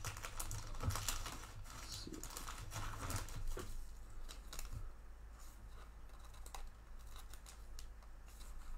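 Trading cards being handled and sorted by hand: light clicks, taps and rustles, busiest in the first four seconds, then sparser.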